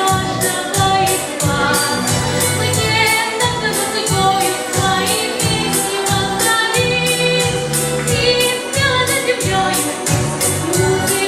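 A girl singing a pop song over musical accompaniment, with a steady beat of about four strokes a second.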